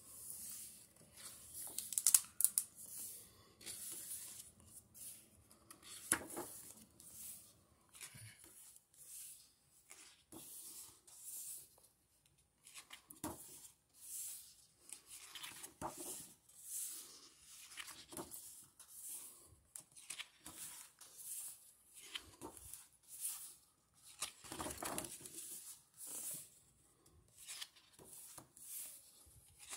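Pages of a thick-paper hardcover comic book being turned one after another by hand, each a short papery swish, about one every second or two, some louder than others.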